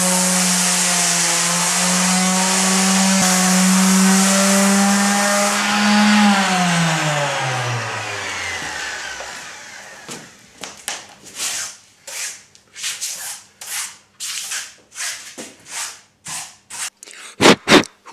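Electric orbital sander running steadily, then switched off about six seconds in, its hum falling in pitch as it spins down over about three seconds. Footsteps and shuffling follow, then loud knocks as the camera is picked up near the end.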